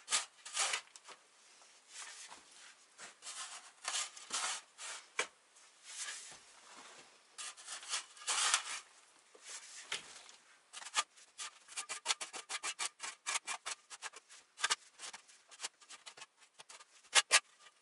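Steel shovel scraping and scooping loose soil off the earth floor of a pit in irregular strokes, clearing the leftover soil and levelling the ground. About halfway through the scrapes become shorter and quicker, with a couple of sharper scrapes near the end.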